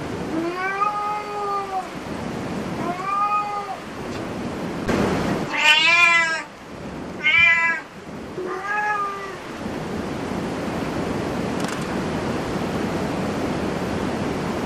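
Domestic cat meowing five times, each call rising and falling in pitch, the third and fourth the loudest. After the last meow only a steady background hiss remains.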